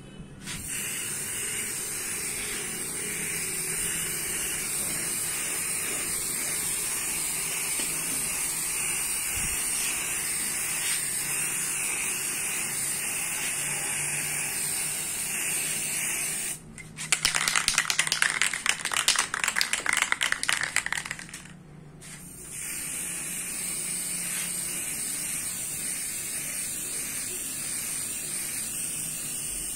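Aerosol spray can of black paint hissing steadily as it sprays a motorcycle tank side cover. Midway the spraying stops for about five seconds of loud rattling, then the steady hiss resumes.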